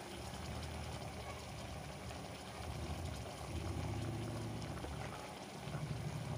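Meat and onions cooking in mustard oil in an aluminium pressure cooker over a high gas flame: a steady low rumble with faint watery bubbling.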